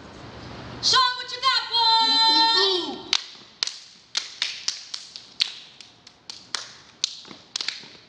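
A voice holds one long, wavering note for about two seconds. Then come sharp hand claps and slaps of the dancers' body percussion, one or two a second, irregularly spaced.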